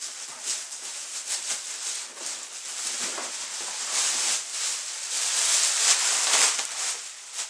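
Thin plastic carrier bag rustling and crinkling as a cardboard box is pulled out of it. The crackle surges and eases, loudest about two thirds of the way through, and dies away near the end.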